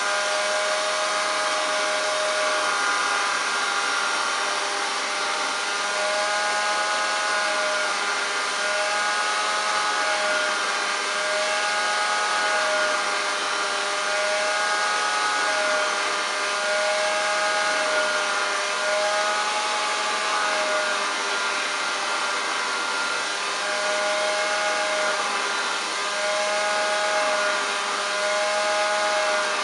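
1935 Hoover Junior 375 vacuum cleaner's motor running steadily with the hose attachment in use, a steady whine over a rush of air, its pitch dipping slightly and recovering every few seconds.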